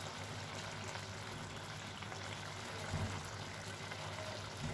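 Squash-and-potato curry gravy simmering in a pan: a steady, quiet bubbling hiss, with a soft low thump about three seconds in.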